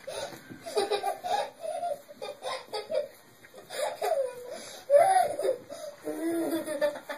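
A young child laughing in repeated high-pitched bursts.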